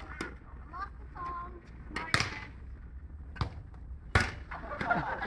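A few sharp knocks of a ball being hit with a shovel blade used as a cricket bat, the loudest about two seconds in and another just after four seconds, with voices in the background.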